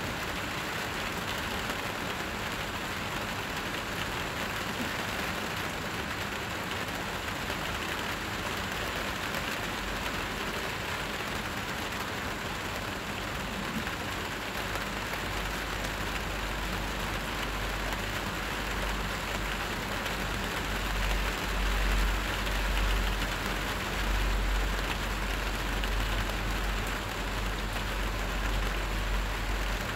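Steady hiss of background noise, with a low rumble that comes in about a third of the way through and grows, strongest past the two-thirds mark.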